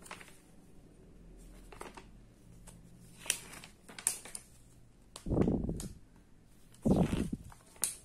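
Pages of a paper instruction booklet being turned by hand: a few short rustling swishes, with two duller bumps of handling around the middle and later on.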